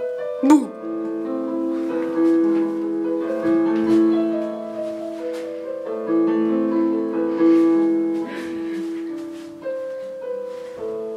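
Piano playing a slow run of held notes and chords. A short sharp knock comes about half a second in.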